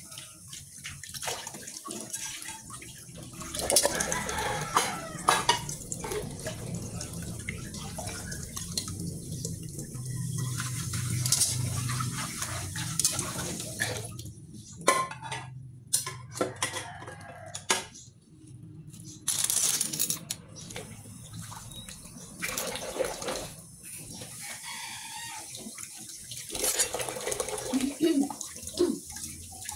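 Tap water running into a stainless steel sink while metal pots, a pan and spoons are rinsed, with frequent clatters and knocks of the dishware against the sink and each other.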